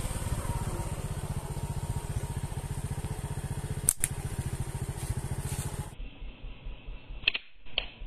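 An engine runs steadily with a fast, even beat and cuts off suddenly about six seconds in. A single sharp click comes about four seconds in, and two more sharp clicks come near the end.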